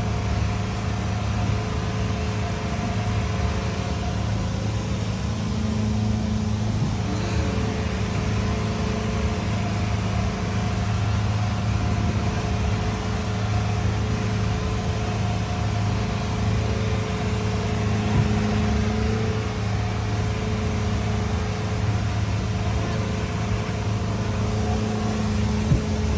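A boat's engine running steadily, a constant drone with a noisy wash over it.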